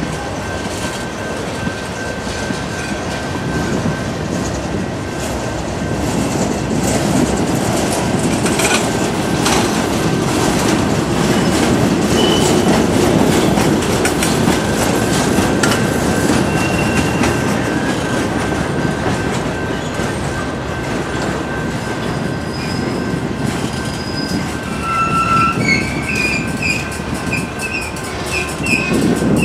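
Freight train of tank cars, covered hoppers and steel coil cars rolling past, with a steady rumble and clatter of wheels over the rail. Short, high wheel squeals come and go, several close together near the end.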